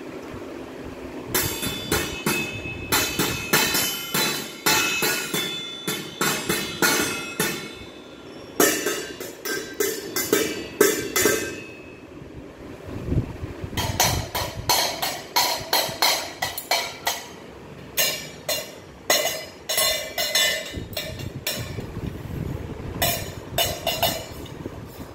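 Stainless steel plates and lidded steel containers being struck rapidly with a fork and spoon: a clatter of many metallic taps, each ringing briefly, in several bursts separated by short pauses.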